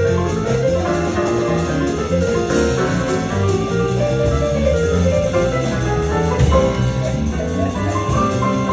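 A New Orleans jazz band playing live, with drums and a moving bass line under melody notes.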